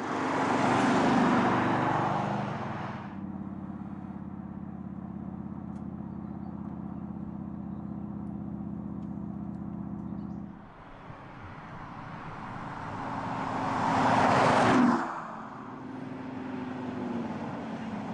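Audi SQ7 sports SUV driving past twice, engine and tyre noise swelling and fading. The first pass comes right at the start; a steady low engine drone follows. A second pass builds over several seconds and cuts off sharply about two-thirds of the way through, with the steady drone again after it.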